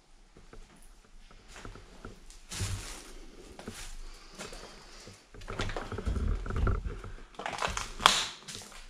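Footsteps crunching and rustling through paper and debris strewn across the floor, with one sharp crack about 8 seconds in.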